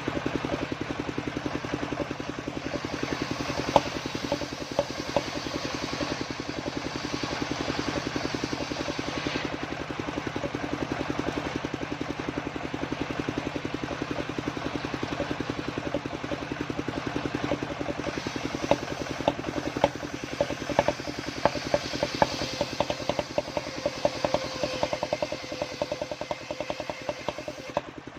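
Homemade engine-driven circular saw running steadily while sawing waru wood into rafters and battens. A brighter hiss comes in two stretches, from about three seconds and again past twenty seconds, with scattered sharp ticks in the second half.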